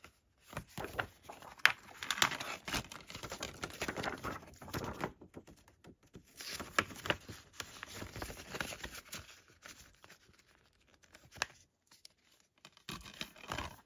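Paper and card rustling and crinkling in two stretches as printed inserts are handled, with a couple of light clicks near the end.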